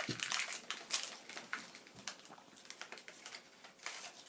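Crinkling of a foil Pokémon booster pack wrapper being opened and handled: quick irregular crackles, thickest in the first second and a half, with another flurry near the end.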